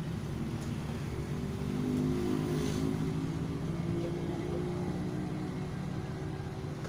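A motor vehicle's engine running steadily, louder for a second or two near the middle and then easing off.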